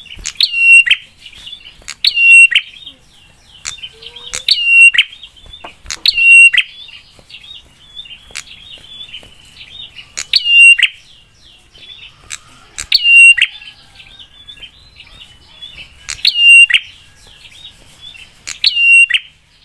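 Prinia (prenjak) song: a loud, sharp call repeated about eight times, roughly every two seconds, with quieter fast chattering in between.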